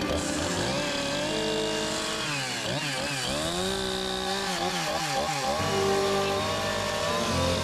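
Two-stroke carving chainsaw cutting into a log. The engine pitch rises and falls as the throttle is worked, with a run of quick up-and-down swings in the middle.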